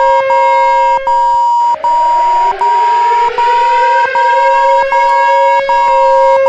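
Electronic warning siren and alarm tones from a mock nuclear attack alert. A steady higher tone pulses about every three-quarters of a second over a lower steady tone. About a second and a half in, the lower tone cuts out and a siren winds up, rising in pitch over several seconds before levelling off.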